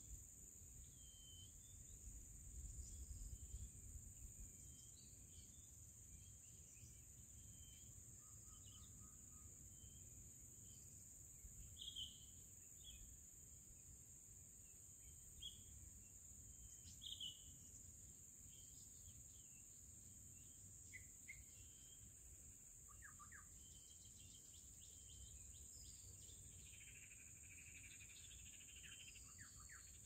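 Faint scattered short, high chirps of small birds over a steady high insect drone, with a brief low rumble a few seconds in.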